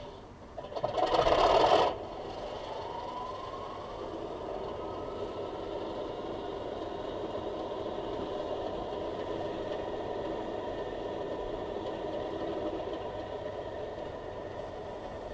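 Model Class 37 diesel locomotive's sound decoder playing a recorded English Electric engine start-up through its small onboard speaker. There is a loud burst of about a second as the engine fires, then a rising turbo whine, and then a steady idle.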